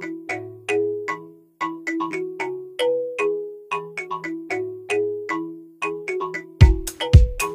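Electronic intro music: a ringtone-like melody of short pitched notes, about three a second, each dying away quickly. Deep bass hits come in near the end.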